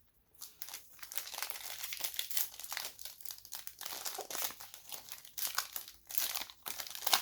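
Plastic trading-card pack wrapper crinkling as it is torn open and handled, a continuous uneven crackle that starts about half a second in.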